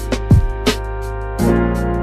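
Instrumental background music: a steady beat of deep kick drums and sharp snare hits under sustained keyboard chords, with a chord change about one and a half seconds in.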